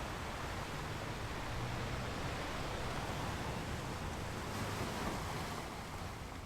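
Ocean waves washing onto a beach: a steady surf hiss that swells a little around four to five seconds in, then eases.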